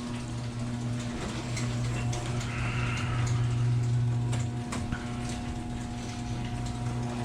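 Steady electric motor hum, with scattered light clicks and knocks over it.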